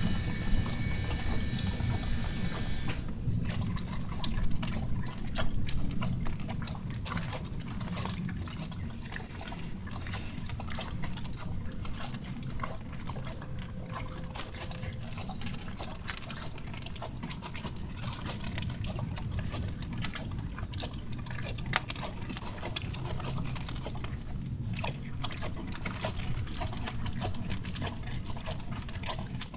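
A horse chewing its feed and hay: a steady run of many small crunching clicks over a low grinding. A high-pitched steady tone sounds for the first three seconds, then stops.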